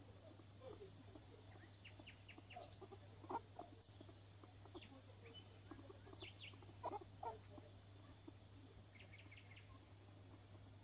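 Hairless skinny guinea pig making short, faint calls and squeaks scattered throughout, the loudest about three seconds in and around seven seconds, over a steady low hum.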